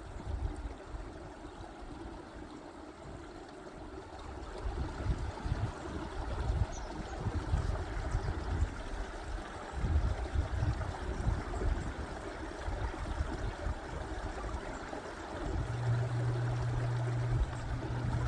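Mountain stream running over rocks in a steady watery rush, with gusts of wind buffeting the microphone. A steady low hum joins near the end.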